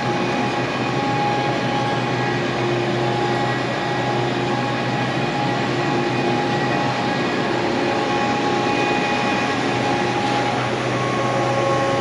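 Kaeser AS 20 T rotary screw air compressor running: a steady mechanical drone with a few constant pitched tones and no change in level.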